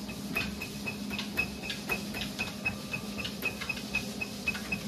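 Running treadmill with a steady motor hum and a regular high tick about four times a second, under the irregular knocks of a Siberian husky puppy's paws stepping on the moving belt.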